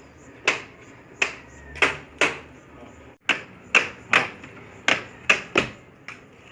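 Worn rear door check strap (door limiter) of a Fiat Uno, giving sharp clicking knocks as the door is worked back and forth. There are about a dozen knocks, roughly two a second and unevenly spaced. This is the annoying noise of a worn-out limiter that needs replacing.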